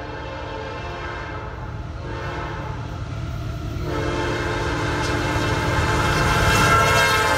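Norfolk Southern diesel freight locomotive's air horn sounding for a grade crossing as the intermodal train approaches. The blasts are split by short gaps, and the last is held long and grows louder, over the low rumble of the locomotives.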